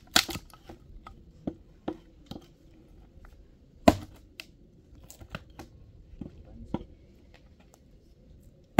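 Axe chopping dry branches for firewood: irregular blows of wood being struck and split, the hardest just after the start and about four seconds in, with lighter knocks between.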